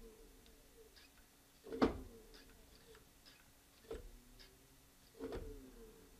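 Electric scooter hub motor jerking in short pulses with the throttle held, about one every one to two seconds, three times. Each pulse is a sudden knock with a brief whine that falls away, with faint ticking between pulses. It will not drive continuously: the controller cuts power the moment the wheel starts turning.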